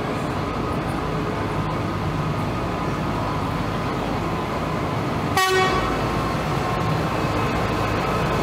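Tractor engines running as a slow procession of tractors rolls past, with one short, loud horn toot about five seconds in.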